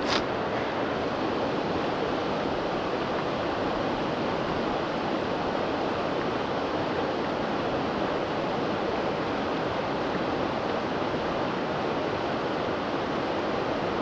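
Steady rush of river water flowing over rocks.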